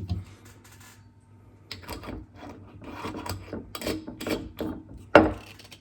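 Scraping and rubbing strokes as sugar is added to a jar of homemade lemon verbena liqueur, with a thump at the start and a sharp knock near the end.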